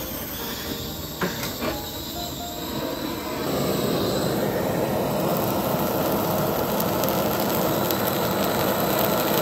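Handheld canister gas blowtorch burning with a steady rushing hiss as its flame sears fish slices. It gets louder about three and a half seconds in.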